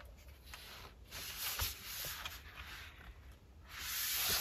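Faint rustling and a light tap as hands handle and set down a small LEGO brick car model on a tabletop.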